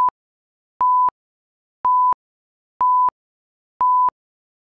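Workout interval timer counting down: short, high electronic beeps about once a second, all at the same pitch.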